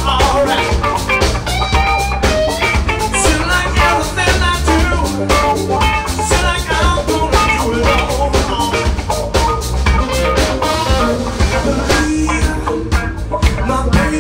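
Live blues-rock band playing: two electric guitars, bass guitar and drum kit, with a steady drum beat throughout.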